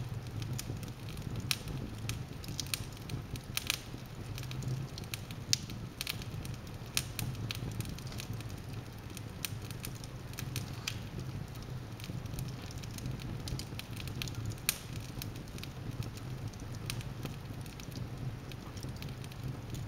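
Wood logs burning in a fireplace, crackling with irregular sharp pops over a low steady rumble.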